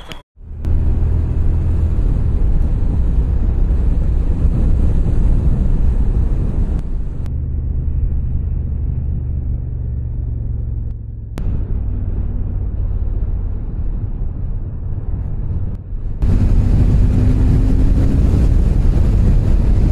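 Motorcycle on the move, recorded on the bike: a loud, steady low wind-and-engine rumble whose character shifts abruptly a few times, with the engine note rising slightly near the end.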